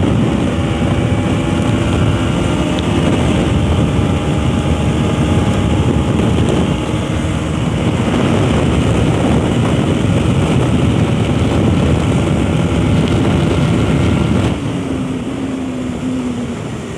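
Single-cylinder Bajaj Pulsar NS200 engine pulling hard at high revs while riding fast, with heavy wind rushing over the helmet microphone. Near the end the throttle eases off, the engine gets quieter and its pitch falls.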